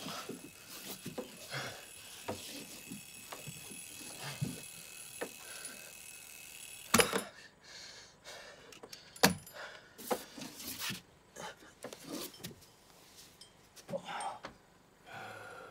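A man's strained breathing and grunting as he convulses, with two sharp thuds about seven and nine seconds in.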